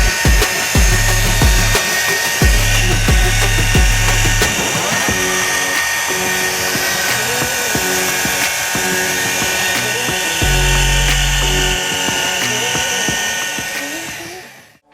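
Background music with a deep, stepped bass line over a steady high whir from a power tool used on the headlight. Both fade out just before the end.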